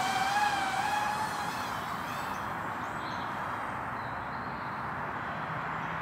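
HGLRC Drashark 1.6-inch 1S micro FPV drone in flight, its motors and props giving a high buzzing whine that wavers in pitch. The whine fades away about a second and a half in, leaving a steady hiss.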